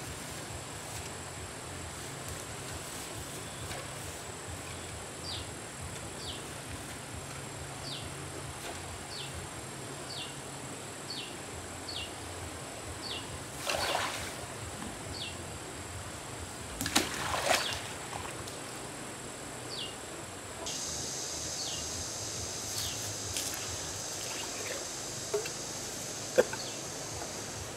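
Outdoor streamside ambience with a steady insect drone and a run of short falling chirps, broken about halfway through by water splashing as a pump's intake hose is pushed into the stream, with a second, louder burst of splashing a few seconds later. Near the end a shriller insect drone sets in and there are a few sharp clicks of hose fittings being handled on the pump.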